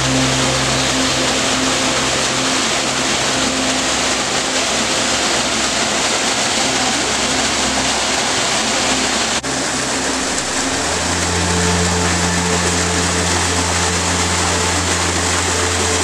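Small waterfall pouring into a pool: a loud, steady rush of falling water. Under it runs a low steady hum of a few tones, which drops in pitch about eleven seconds in.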